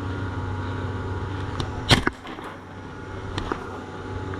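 A steady low hum, broken about two seconds in by one loud, sharp double crack. The hum stops right after it, and a few faint clicks follow.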